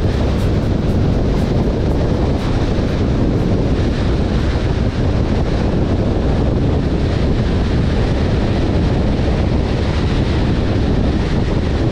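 Steady road and wind noise from a car driving along, a low, even rumble with no engine note standing out.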